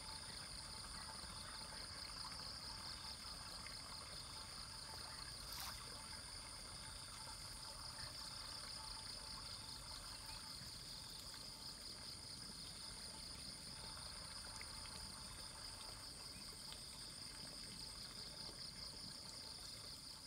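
Faint pond-side ambience: water trickling steadily, under a constant high-pitched trilling of insects. A single sharp click comes about six seconds in.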